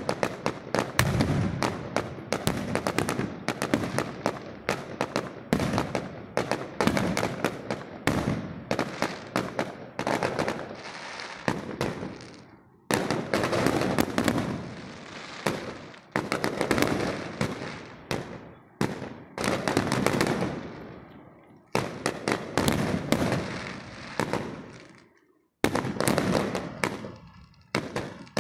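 Fireworks display: dense volleys of sharp bangs and crackling from bursting shells, each volley dying away in echo. The firing lulls a few times and stops almost completely for a moment near the end before starting again.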